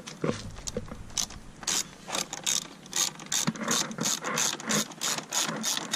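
Hand socket ratchet being worked on a bolt, its pawl clicking in a steady run of about three to four clicks a second that starts about a second in.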